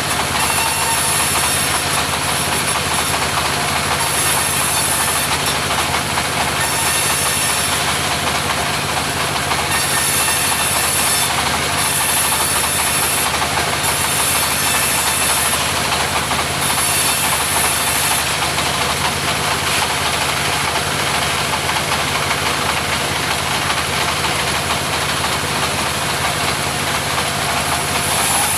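Mobile sawmill running steadily, its engine humming under the noise of the saw cutting timber, with a high hiss that comes and goes every second or two.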